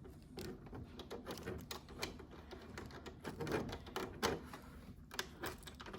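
Quiet, irregular small clicks and rattles of a VGA cable connector being handled as its thumbscrews are tightened.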